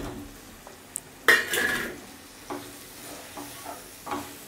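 Boiled yam pieces dropped into hot masala in a nonstick pan, with a short burst of sizzling about a second in, then a wooden spatula stirring with a few soft scrapes and taps against the pan.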